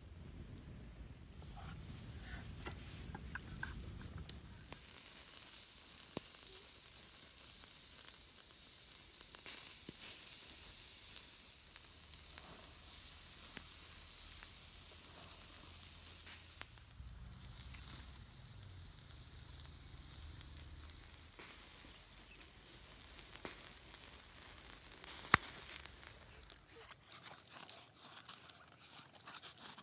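Open wood fire crackling and hissing, and a whole duck sizzling as it roasts over glowing embers, with scattered sharp pops.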